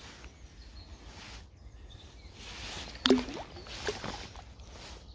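Water sloshing and swishing in repeated surges as a pike is lowered into shallow water by hand and released. A sudden sharp sound about three seconds in is the loudest moment.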